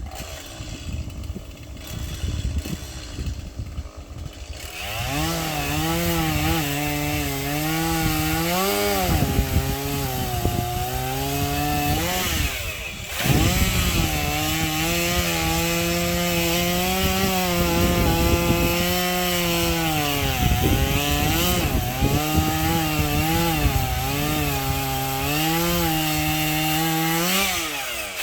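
Chainsaw cutting sycamore branches: the engine comes up to speed about four seconds in, its pitch sagging again and again as the chain bites into the wood. There is a short break about thirteen seconds in before it carries on cutting.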